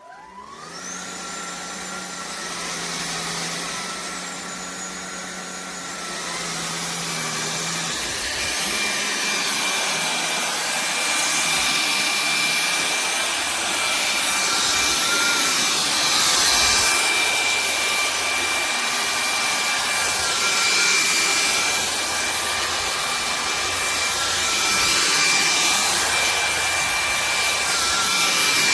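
INTETURE cordless stick vacuum switching on: the motor spins up with a rising whine, then runs steadily. From about eight seconds in the sound turns louder and rougher with a rushing noise.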